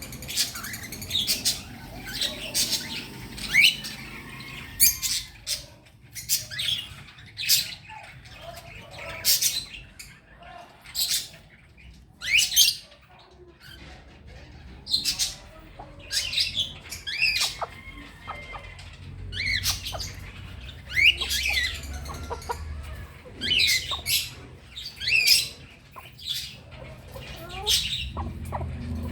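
Many small birds calling at once: short, sharp chirps and squawks, coming thick and irregular, super noisy.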